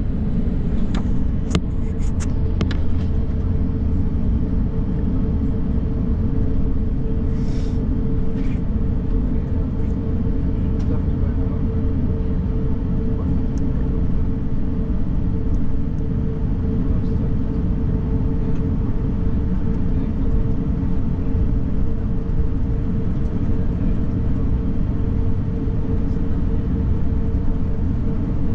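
Steady low rumble of an Airbus A350 cabin on the ground after landing, with a constant hum from the engines at idle. A few light clicks come in the first few seconds.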